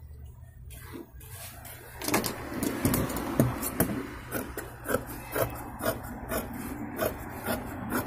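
Tailor's scissors cutting through sweatshirt fabric on a wooden table: a quick run of short snips, about two to three a second, starting about two seconds in, over a steady low hum.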